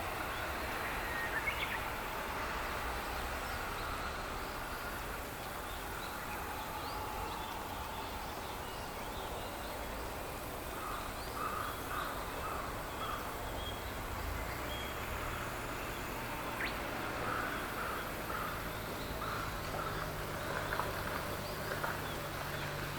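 Open-air background after the train has gone, with a bird calling in two short runs of several calls, about halfway through and again near the end. A low steady hum comes in during the second half.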